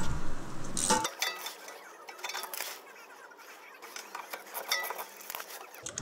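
Ratchet and socket clicking and clinking on the rusty caliper-bracket bolts of a parking brake cable, in short irregular metallic clicks, busiest in the first second and then sparse and faint.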